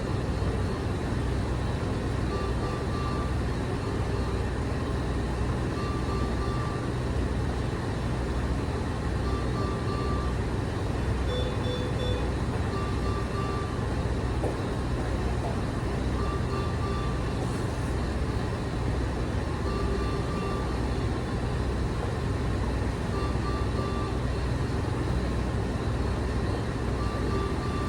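Bedside medical equipment running: a steady low mechanical hum, with a short pitched tone repeating about every three and a half seconds.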